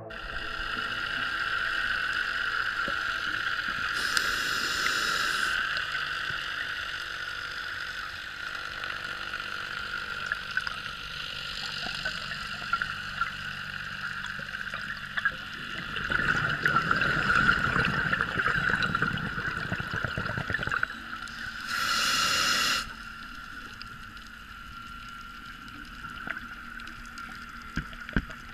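Underwater sound picked up by a diving camera: a steady hiss and bubbling of scuba divers' exhaled air. Two short rushes of regulator exhaust bubbles stand out, about four seconds in and about twenty-two seconds in.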